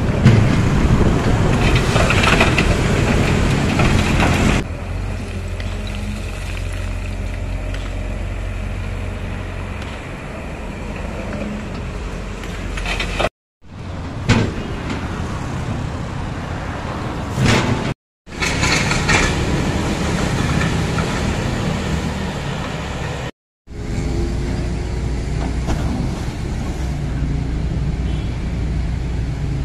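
Hydraulic excavators at work, their diesel engines running steadily, in a run of short clips that cut off abruptly three times. A couple of sharp clunks come in the middle.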